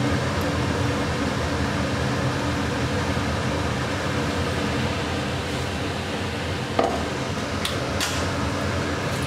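Steady fan-like whirring hum from a running machine, with a single knock about seven seconds in and a couple of light clinks near the end as ground rice is tapped out of a steel mixer-grinder jar into a bowl.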